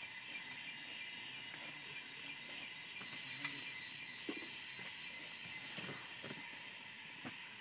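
Steady drone of forest insects, several thin high tones held without a break, with a few soft clicks and knocks scattered through.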